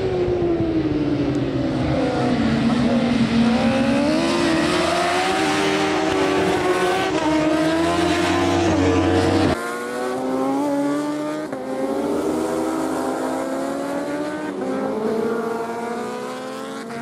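Several racing motorcycle engines at high revs, their pitch falling as they brake into a corner, then climbing in steps through the gears as they accelerate out. The sound drops abruptly about halfway through, and the pitch rises and falls again as more bikes run through the bends.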